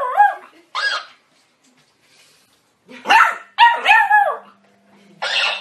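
Beagle puppy barking in short yapping bursts: a couple of barks at first, a pause of about two seconds, two more barks about three seconds in, and another starting near the end.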